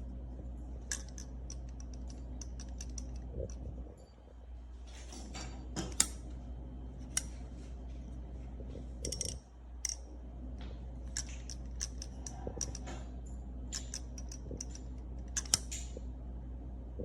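Button-lock folding pocket knife clicking as the blade is flipped open and snapped shut again and again: irregular sharp clicks and small metallic snaps, the loudest about six seconds in and near the end, over a steady low hum.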